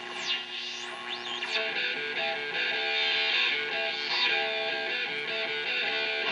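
Music with strummed electric guitar; swooping rising and falling pitch glides sound over it in the first second and a half.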